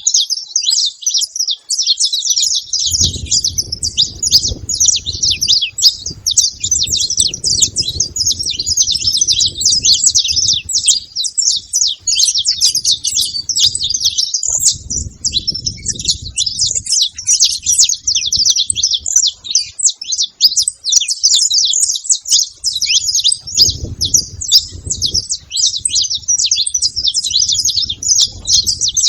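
Saffron finch singing in fast, continuous high chirps and trills without a break, with a faint low rumble coming and going underneath.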